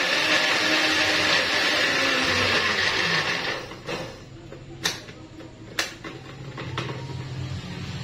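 Electric countertop blender running steadily on a thick, sticky chocolate mixture, switched off about three and a half seconds in and winding down. Three sharp clicks follow as the glass jar is handled on its base.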